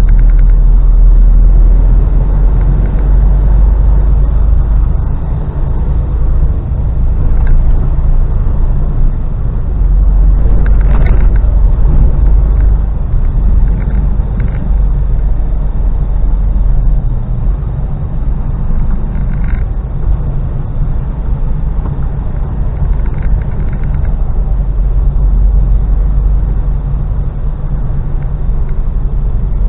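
Steady low drone of a Mercedes Actros lorry's engine and road noise, heard inside the cab while driving along.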